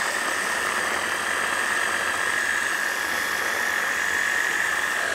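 Electric mini chopper running steadily, its blades blending basil pesto in the bowl, with a constant high motor whine over a whirring hiss.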